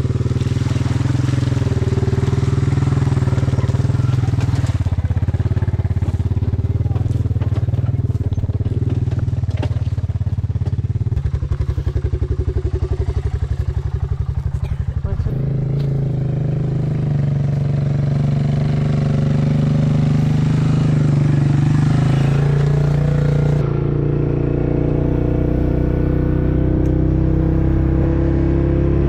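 Quad bike (ATV) engine running steadily while the bike is driven along a farm track. Its note shifts about halfway through.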